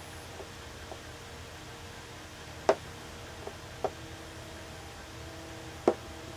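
Wooden chess pieces set down on a wooden chessboard: a few light taps and two sharper knocks, one about a third of the way in and one near the end, over a steady low hiss.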